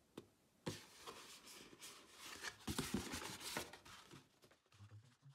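Stiff recycled cardboard of a flat-pack folding box being bent and handled: two sharp clicks in the first second, then about three seconds of rustling and scraping as the panels are folded.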